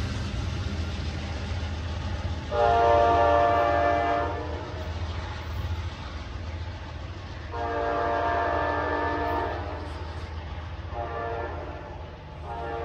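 Multi-chime train horn sounding a chord in blasts: two long blasts, a short one, and the start of another near the end. This long-long-short-long pattern is the standard grade-crossing signal. A steady low rumble runs underneath.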